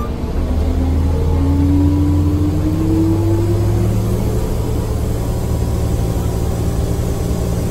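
Orion VII city bus engine accelerating: a low steady rumble with a whine that rises slowly in pitch over the first few seconds, then steady running.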